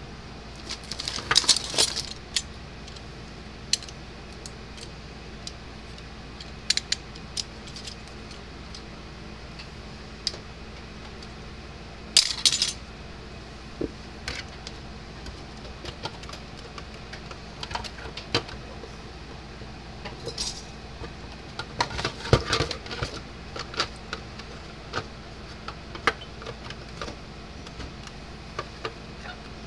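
Irregular clicks, taps and rattles of small plastic and metal fence-charger parts being handled and set down on a workbench. The louder bursts of clatter come about a second in, just before the middle, and about three-quarters through.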